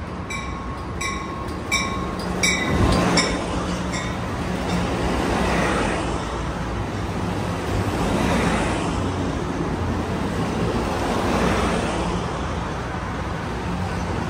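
A passenger train passing close by, with a bell ringing about three strokes a second until about three seconds in. After that come the steady rush and rumble of the cars going past, swelling every few seconds.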